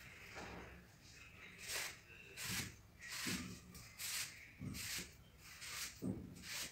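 A paint brush brushed against a wall in short strokes while laying on textured paint, a dry rubbing swish roughly every three-quarters of a second.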